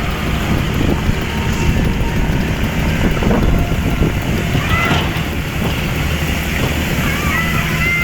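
Heavy vehicle engine running with a steady low rumble. A few short high chirps come in about five seconds in and again near the end.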